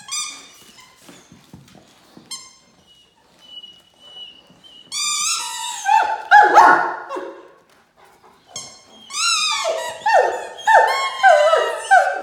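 Rubber squeaker in a dog toy squeaking over and over as a Great Dane chews it: two loud bouts of rapid squeaks, about halfway through and near the end, each squeak sliding down in pitch.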